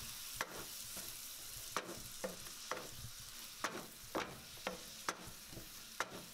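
Minced meat and chopped onion sizzling as they fry in a nonstick pot, stirred with a wooden spoon that makes short scrapes against the pan every half second or so.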